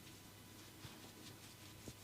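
Near silence: room tone with a low hum, broken by two faint taps about a second apart.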